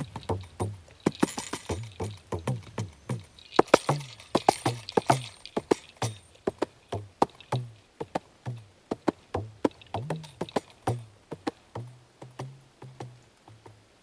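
Kanjira, the South Indian jingle frame drum, played by hand in a quick rhythmic run: sharp strokes with short pitched bass tones, and bursts of jingle rattle a second or so in and again around four seconds. The strokes slow and fade out near the end.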